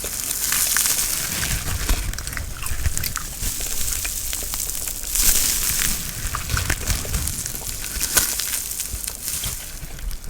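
Close-miked ASMR brushing and rustling on the microphone: soft swishing strokes that swell and fade, with scattered small clicks.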